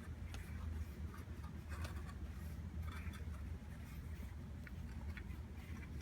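Bicycle tyre bead being worked onto the rim by hand: faint rubber-on-rim scuffing and rustling with a few light clicks, over a steady low hum.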